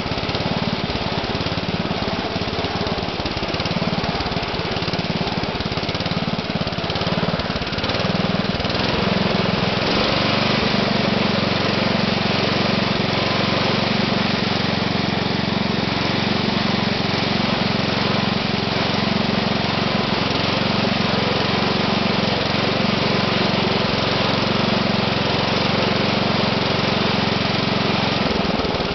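The 1972 MTD 960 garden tractor's small air-cooled engine runs steadily while the tractor is driven. About ten seconds in, the engine note firms up and gets a little louder.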